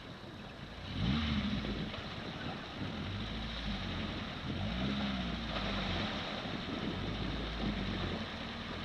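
Lifted off-road pickup truck wading hub-deep through a river: its engine revs up and eases off about a second in and again around five seconds, over the steady splash and wash of water churned by the tyres.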